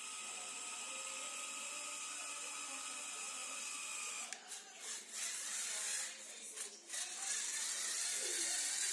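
Small Lego Technic electric motors whining steadily. They stop and start a few times about halfway through, then run again louder and hissier.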